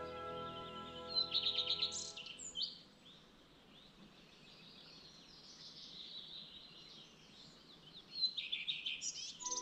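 A songbird singing outdoors: a loud, quick trilled phrase about a second in and another about eight seconds in, with softer song between them. Soft background music with held notes fades out in the first two seconds and comes back right at the end.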